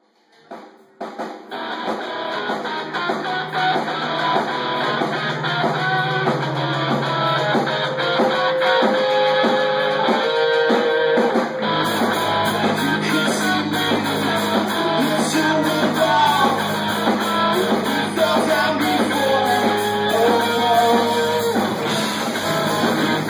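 Live rock band playing, with electric guitars and a drum kit. The music starts about half a second in and grows fuller from about twelve seconds in.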